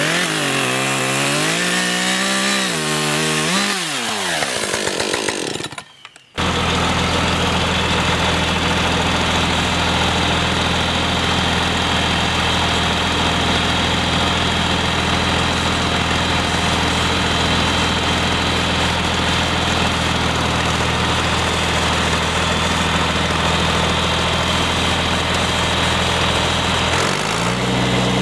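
Gas chainsaw revving up and down as it cuts down a cedar tree. After a short break about six seconds in, an engine runs steadily at one speed and speeds up near the end.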